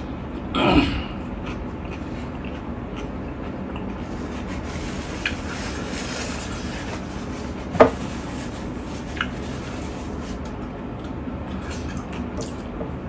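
Fingers mixing rice and curry on a steel plate and eating, with a short louder burst just under a second in, a few light clicks, and one sharp click against the plate about eight seconds in.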